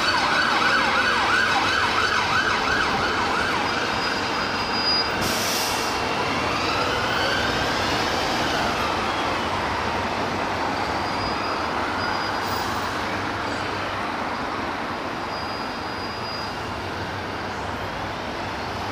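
UK emergency-vehicle siren: a fast warbling yelp for the first couple of seconds, then slow rising and falling wails, over street traffic.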